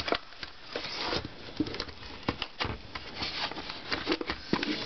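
Hard plastic case of a Sleepy Sounds Donald Duck nightlight being handled and worked open by hand, its screws already out: irregular clicks, taps and short scrapes of plastic, several a second.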